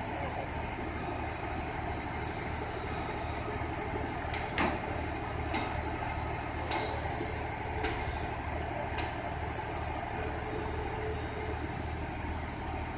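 Heavy diesel engine of a truck-mounted mobile crane running steadily with a low rumble. A handful of short sharp knocks come through over it in the middle, the first the loudest.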